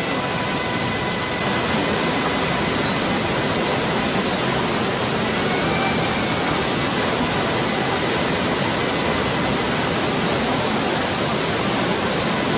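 Kibune River, a fast mountain stream, rushing steadily over rocks and small drops. It gets slightly louder about a second and a half in.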